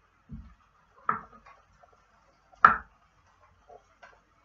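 Kitchen knife chopping mushrooms on a wooden chopping board: a few slow, separate knocks of the blade on the board, the loudest about two and a half seconds in, with fainter taps between.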